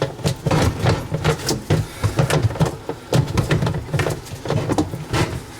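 Irregular clicks, knocks and clatter of plastic dishwasher parts being pushed back into place and handled, with a steady low hum underneath.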